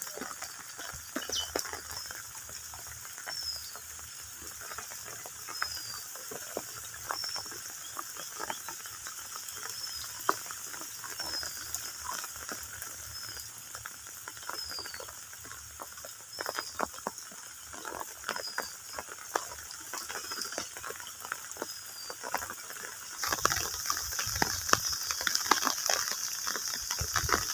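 Small splashes and ticks of water being worked in shallow rain-fed water while fishing by hand. A short, high, falling chirp repeats about once a second, and a brighter high hiss joins near the end.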